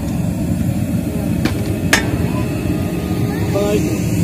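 A steady low rumble, with two sharp clicks about one and a half and two seconds in.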